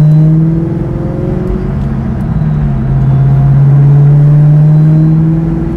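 The 2003 Mustang SVT Cobra's supercharged 4.6-litre DOHC V8 under way, heard from inside the cabin. The engine eases off about half a second in, then pulls again with its pitch slowly rising and backs off near the end.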